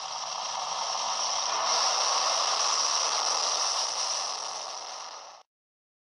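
Top Fuel dragster's supercharged, nitromethane-burning V8 at full throttle on a run, heard as a harsh, dense noise with no clear engine note. It builds for about two seconds, eases off, then cuts off suddenly about five seconds in.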